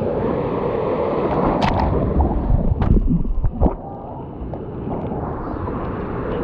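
Breaking surf washing around the nose of a paddleboard, loudest about two to four seconds in with splashes and a few sharp knocks, then settling to a softer wash.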